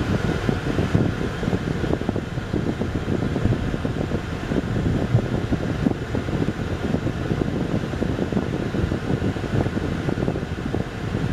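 Steady road and engine noise inside a moving car's cabin: a low, uneven rumble from the tyres on rough pavement.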